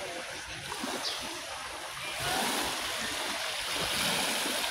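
Shallow sea water lapping and washing at the shore, a steady rushing wash that grows louder about two seconds in.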